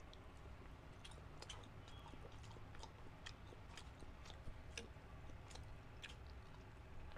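Faint chewing and mouth clicks, about two a second, of people eating grilled isaw (chicken intestine skewers) and betamax.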